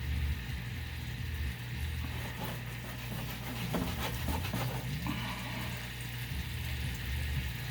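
Monkfish frying in butter in a pan, a steady sizzle, with rubbing and knocking handling noise from the camera and its stand being moved, mostly around the middle.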